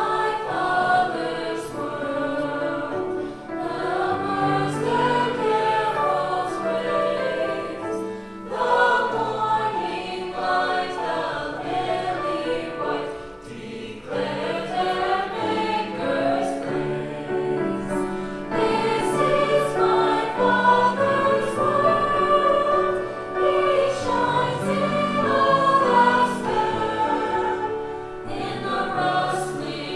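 Children's choir singing a song in phrases of a few seconds, with brief breaks between phrases.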